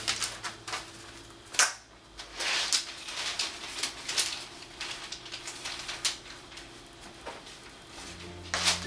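Large sheets of paper and cardboard rustling and crinkling as they are smoothed and pressed flat on a table, with scattered clicks and taps and a sharper crackle about a second and a half in.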